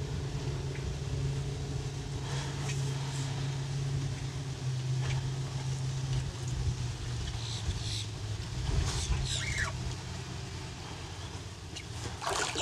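An engine runs with a steady low hum that eases a little near the end. A few short knocks and rattles sound over it.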